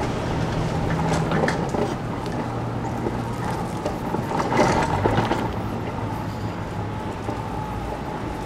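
Steady outdoor street background of vehicle traffic, with a low engine hum and a couple of brief louder noisy flare-ups about one second and four and a half seconds in.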